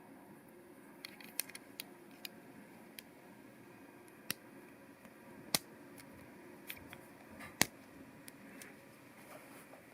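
LEGO Technic plastic pieces clicking and tapping as they are handled and blue connector pins are pushed into place: a dozen or so scattered sharp clicks, the two loudest a little past the middle.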